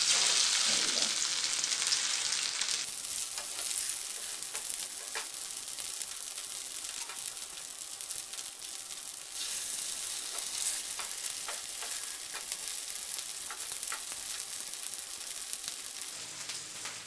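Oil sizzling around flattened boiled taro (arbi) pieces shallow-frying on a nonstick skillet, with scattered small pops. The sizzle is loudest in the first few seconds, then settles to a steadier, softer hiss.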